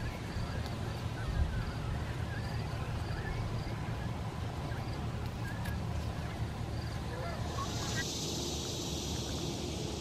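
Outdoor marsh ambience: wind rumbling on the microphone, with faint scattered bird chirps. About eight seconds in, a steady high hiss comes in and the chirps drop away.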